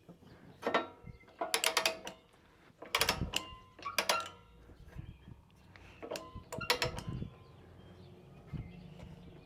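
Ratchet-type chain load binder being worked to pull bent steel back into line, giving irregular clusters of metallic clicks and clanks with a short ringing after each.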